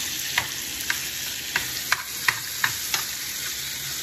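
Ground meat frying in a stainless steel skillet: a steady sizzle. A run of sharp clicks sounds over the first three seconds, one every half second or so.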